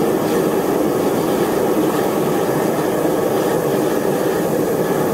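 Homemade propane-fired furnace running, its torch burning propane with air blown in by a hair dryer: a steady rushing noise that does not change.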